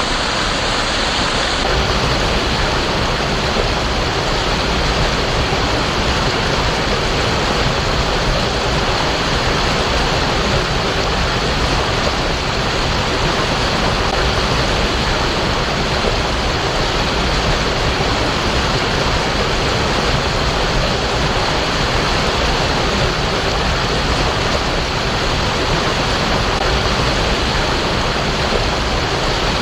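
Steady rush of flowing water, an even roar with no breaks; its tone shifts slightly about two seconds in.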